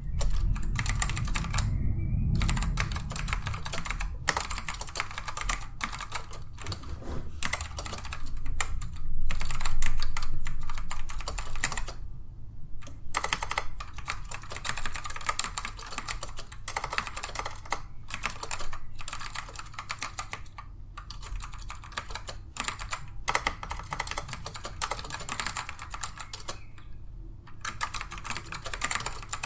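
Fast, steady typing on a Dell AT102W mechanical keyboard with black Alps switches, a dense run of non-clicky key strokes broken by a few short pauses.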